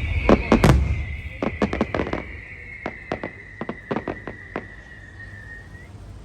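Aerial fireworks bursting: two deep booms in the first second, then a run of sharp crackling pops that thins out and stops. Through it runs a long high tone that slowly falls and fades away.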